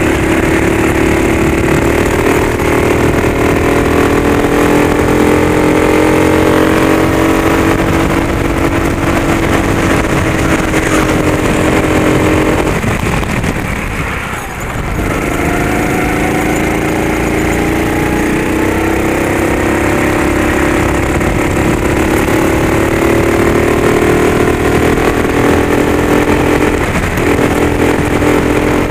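Racing go-kart engine at full throttle, heard from on board, its pitch climbing slowly along a straight. About 13 seconds in it cuts back and the loudness dips as the kart slows into a corner, then it picks up again at a lower pitch and climbs steadily once more, with a brief lift near the end.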